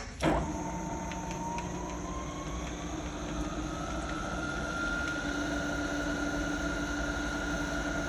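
Birmingham BPV-3949 vertical milling machine's spindle switched on with a sharp click, its whine rising for about four seconds as it spins up, then holding steady at top speed, about 3,000 RPM in high range.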